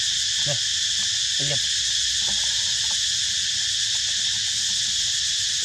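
Steady, shrill chorus of forest insects, with a few brief low calls about half a second, one and a half, and two and a half seconds in.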